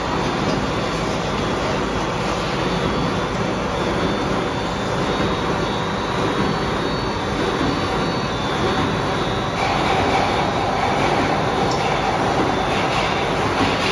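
Paper straw production line machinery running: a steady, dense mechanical din, with a higher whine joining about ten seconds in.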